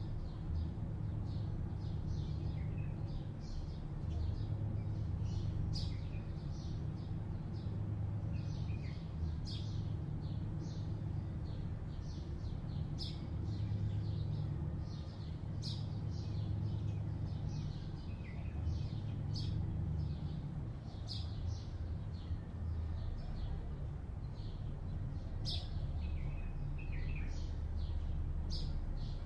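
Many short, high bird chirps, several a second, over a steady low hum of distant city traffic.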